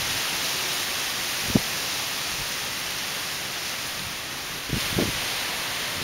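Strong gusty wind rushing steadily through palm trees and other trees. A brief knock comes about a second and a half in, and a few low thumps follow near the end.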